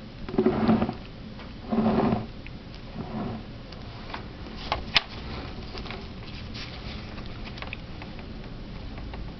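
Handling noise: scattered clicks and rustles as the telephone and its coiled cord are handled, the loudest a sharp click about five seconds in. Two short, low voice-like sounds come in the first two seconds.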